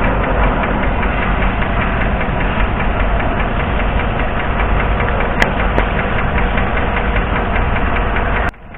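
V8 engine idling with a rapid, steady ticking knock from the valvetrain, which the mechanic suspects is a collapsed AFM valve lifter on cylinder 7. The sound cuts off suddenly near the end.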